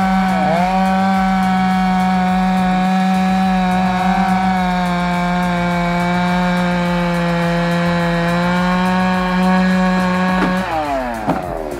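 Chainsaw running at full throttle cutting a large tree, its pitch dipping briefly twice under load, then the throttle released near the end and the engine speed falling away.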